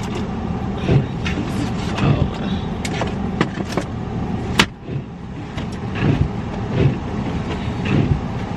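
Car engine idling while it warms up in freezing weather, heard from inside the cabin, with rustling and clicking of things being handled and one sharp click about four and a half seconds in.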